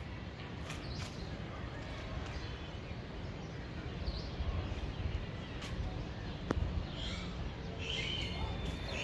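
Wind buffeting the microphone as a steady low rumble, with a few short bird calls about four seconds in and again near the end.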